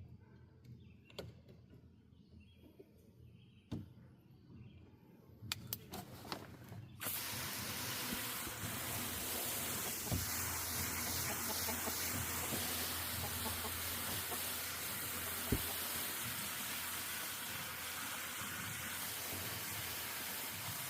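A few clicks and faint chicken clucks, then about seven seconds in a garden hose is turned on and runs with a steady spraying hiss of water.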